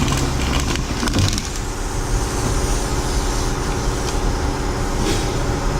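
A steady mechanical hum with even overtones, with a few light knocks in the first second and a half.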